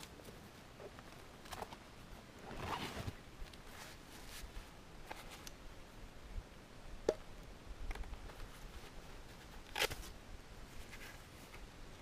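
Quiet background with faint rustling about three seconds in, then two sharp clicks, near seven and near ten seconds in, the second one longer.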